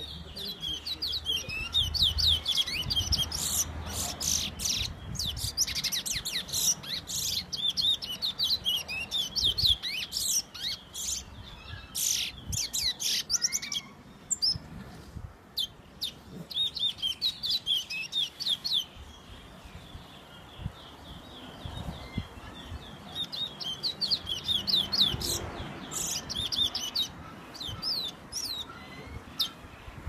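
Towa towa (chestnut-bellied seed finch) singing: rapid runs of high whistled notes, with a pause of several seconds midway where only scattered notes come before the song picks up again.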